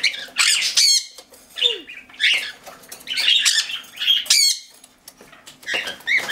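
Cockatiels squawking in short, harsh calls about once a second, mixed with wing flapping, as one bird struggles in a covered bird bath to get out.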